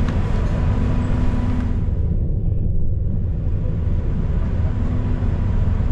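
City transit bus heard from inside the cabin: a steady low engine and drivetrain rumble with road noise and a faint steady whine. The higher hiss drops away briefly about two seconds in, then returns.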